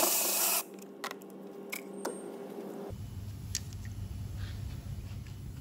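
A cordless ratchet whirs for about half a second at the start, spinning out the 8 mm bolts on a diesel fuel filter housing. A few light clicks and knocks of the plastic housing and its fuel pipes being handled follow.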